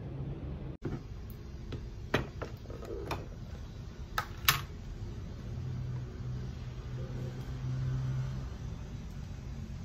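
A few sharp clicks and knocks as a plastic food container and its lid are handled, over a steady low hum.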